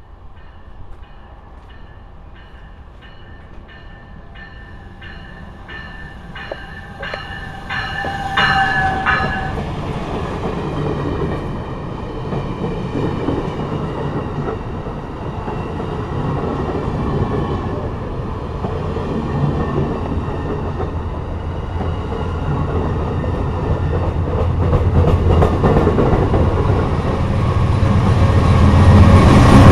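An Amtrak passenger train passes close by a station platform. A bell rings about twice a second as it approaches, then the rumble of the passing cars and wheels swells and is loudest near the end, as a locomotive goes by.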